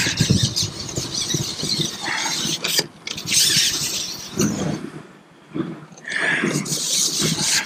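Carbon fishing pole squeaking and rubbing in irregular bursts as it is handled and slid, with a quieter lull a little past the middle.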